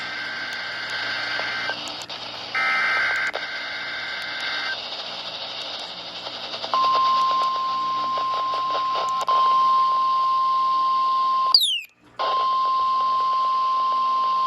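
NOAA Weather Radio weekly test heard through a receiver over radio hiss: two short bursts of warbling EAS digital header tones, then, from about halfway through, the single steady weather alarm tone, broken off for a moment near three-quarters through by falling chirps before it resumes.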